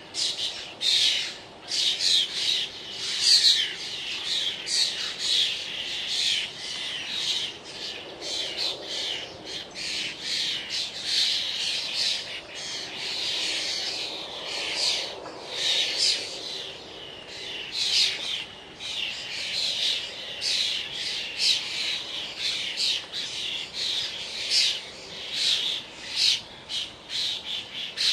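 A flock of starlings calling continuously, many harsh squawks, chatters and whistles overlapping. Faint distant road traffic hums underneath, a little louder in the middle.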